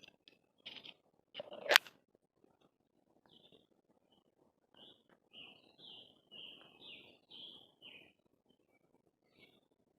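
A wild bird singing a quick run of about eight short chirping notes, starting about five seconds in. Earlier comes a single sharp click, the loudest sound, about two seconds in, with faint rustling throughout.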